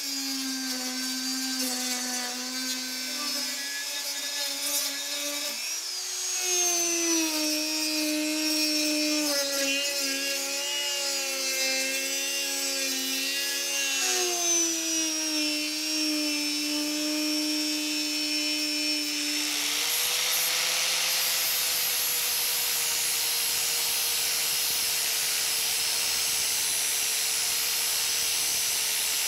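High-speed rotary tool with a small sanding drum sanding a cast-iron bolt-cutter handle, its motor whine dropping in pitch as the drum is pressed on and rising again as it eases off. About two-thirds of the way through it gives way to an angle grinder with an abrasive disc grinding the steel handle, a steady whine over a rushing hiss.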